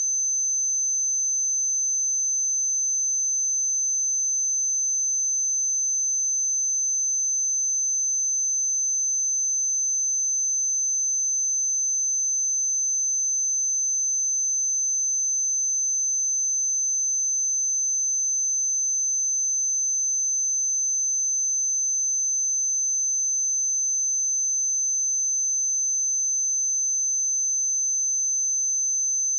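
A pure 6164 Hz sine-wave test tone: a single steady high-pitched tone, unchanging in pitch and loudness.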